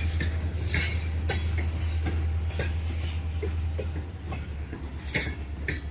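Freight cars of a grain train rolling past: a steady low rumble with irregular clacks and knocks from the wheels over the rail joints.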